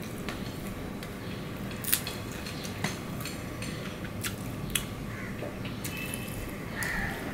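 Eating sounds: chewing, and fingers mixing rice with curry on a steel plate. A few sharp clicks stand out, the loudest about two seconds in, over a steady low hum.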